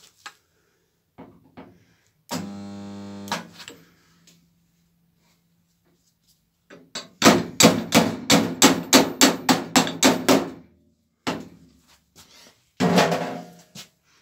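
A homemade spotter stud welder buzzes for about a second as its tip is welded onto the steel door skin. A few seconds later comes a quick run of about a dozen hammer taps, roughly four a second, on the panel around the pulled spot, knocking down the warp left by welding the seam. Another short burst follows near the end.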